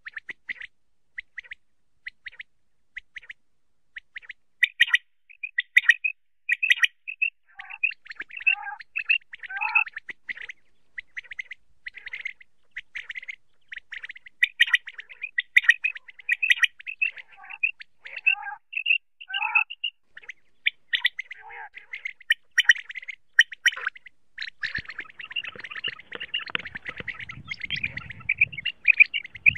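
Common quail calling over and over in quick, high, chirping phrases, with lower falling notes mixed in during the middle stretch. A low noise joins in near the end.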